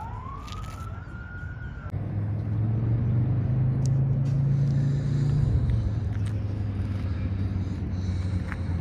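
A siren wails, rising in pitch, and cuts off about two seconds in. A car engine then runs with a low, steady rumble, louder for the next few seconds.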